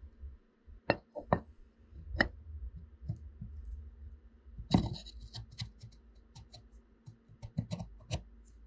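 Metal air-motor cylinder of an Ingersoll Rand 2190Ti impact wrench being worked by hand into the bore of its housing: scattered sharp metal clicks and knocks, the loudest about five seconds in, with scraping and handling noise between them as the sleeve slides down and seats.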